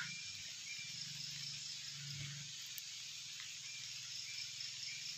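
Quiet outdoor ambience: a steady high chirring of insects, with a few faint short chirps, likely birds.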